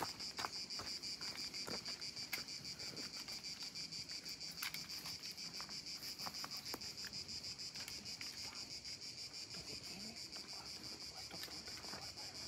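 A chorus of insects in the trees, shrilling steadily in a rapid, even pulse, with a few light rustles and knocks over it.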